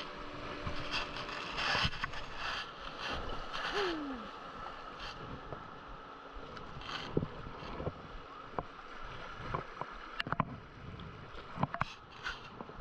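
Shallow river rapids rushing around a kayak, with paddle strokes splashing in the water. Scattered sharp ticks and knocks come mostly in the second half.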